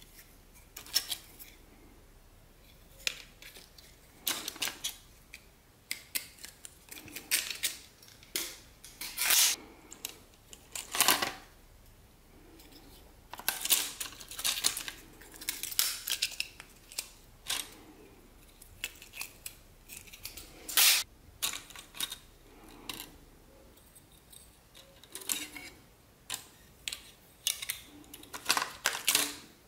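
Laptop circuit boards and small plug-in cards clicking and clattering against each other as they are handled and sorted by hand, in irregular clicks and short rattles with brief pauses between.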